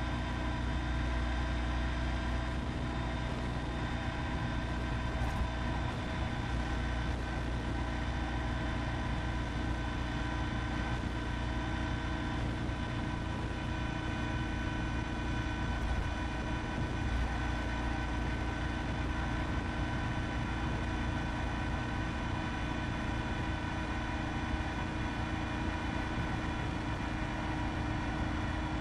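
Honda ST1300 Pan European's V4 engine running steadily at motorway cruising speed, about 100 km/h, an even hum of several held tones over a low rush of wind and road noise.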